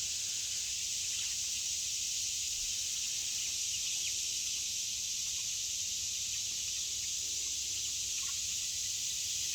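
Steady high-pitched drone of an insect chorus, with a few faint short bird peeps now and then.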